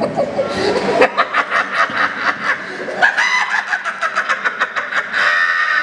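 A man performs a maniacal villain laugh through a microphone: the cackle of the RWBY character Tyrian Callows. It comes as rapid cackling bursts that climb into drawn-out, high-pitched shrieks.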